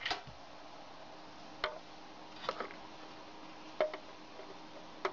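A few short, sharp clicks at uneven intervals about a second apart, over a faint steady hum.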